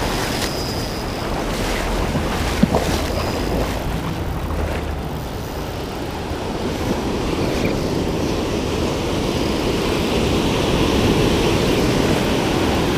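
Shallow surf breaking and whitewater washing and fizzing around the wader, with wind rumbling on the microphone.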